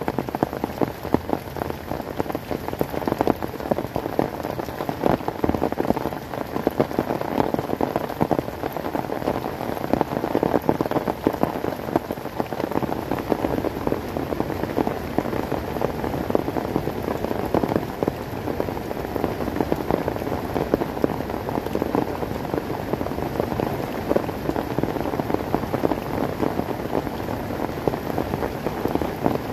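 Heavy rain falling steadily, a dense patter of countless drops striking close by.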